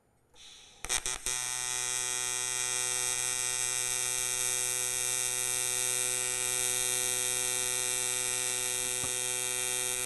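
AC TIG welding arc on 6061 aluminum: after a brief hiss, the arc strikes with a few sharp crackles about a second in and settles into a steady high-pitched buzz. The machine is set to 150 Hz AC frequency, and that frequency can be heard in the buzz.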